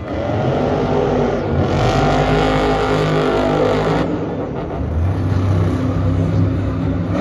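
Monster truck's supercharged V8 revving hard, its pitch rising and falling, with a loud rush of noise for a couple of seconds near the middle that cuts off suddenly.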